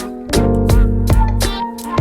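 Background music with a steady beat: bass, plucked guitar-like notes and drum hits.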